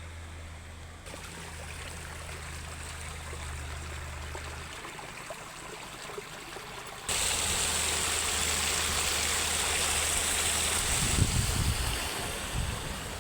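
Water of a small creek running and trickling as a steady rush, turning much louder about halfway through. A few low thumps come near the end.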